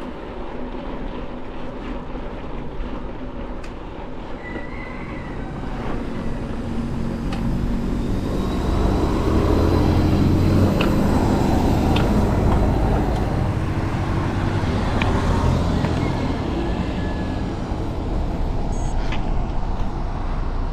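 Road traffic: a motor vehicle's noise swells to a peak about halfway through, then slowly fades, with a few sharp clicks along the way.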